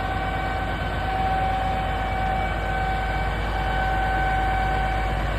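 2014 Zoomlion 47-metre concrete pump truck on a Mercedes-Benz chassis running under test, a steady low rumble with a constant high whine over it.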